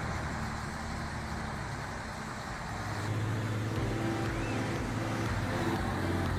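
Heavy vehicle engine running steadily, growing louder about three seconds in.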